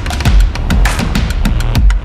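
Background music with a driving drum beat: a deep kick drum about twice a second under quick, sharp percussion hits.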